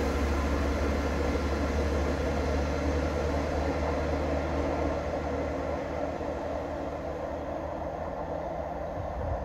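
A train rolling past with a steady rumble, slowly fading over the second half.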